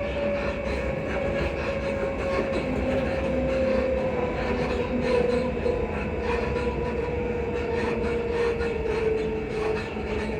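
Class 334 electric multiple unit heard from inside the carriage, running on the rails with a steady rumble and a motor whine that falls slowly in pitch as the train slows for a station stop.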